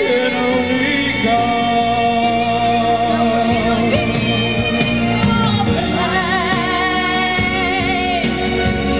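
A woman singing with a live band, holding long notes with vibrato over a steady accompaniment.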